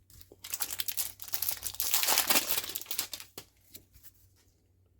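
Foil trading-card booster-pack wrapper crinkling and tearing as it is handled, a dense crackle that is loudest about two seconds in and dies away after about three seconds.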